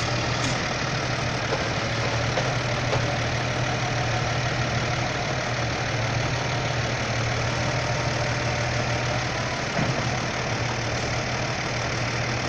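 Farm tractor diesel engines idling steadily, a constant low hum.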